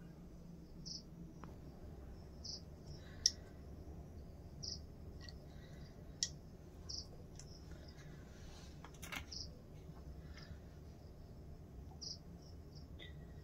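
A cricket chirping faintly, one short high chirp every two seconds or so, over a low hum. Two sharp clicks, about three and six seconds in, are the loudest sounds.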